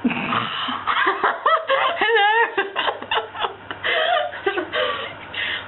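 People laughing in short, broken bursts, with a drawn-out, warbling "hello" about two seconds in.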